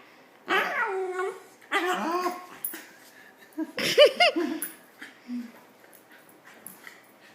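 Corgi puppy whimpering and yipping in three short bursts of rising-and-falling whines, the third the loudest, then going quiet.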